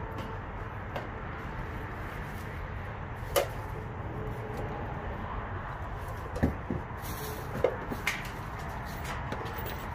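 Objects being handled in cardboard boxes: a few scattered short knocks and thuds, over a steady low rumble.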